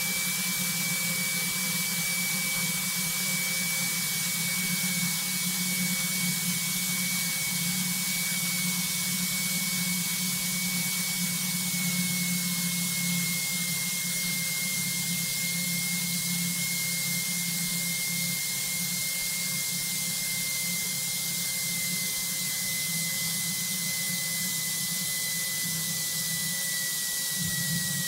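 Steady cabin noise of a single-engine light plane on final approach to landing: engine, propeller and airflow, with a thin whine that slowly drops in pitch.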